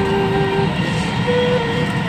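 Dubai Metro train running: a steady rumble and hiss of the carriage in motion, with a few faint held tones that shift in pitch over it.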